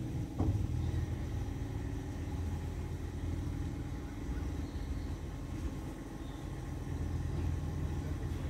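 A stationary train's diesel engine idling with a steady low hum. There is a short knock about half a second in.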